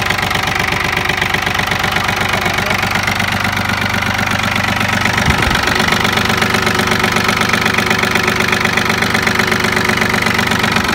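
Yanmar F-180 tractor's three-cylinder diesel engine running steadily, heard close up in the engine bay.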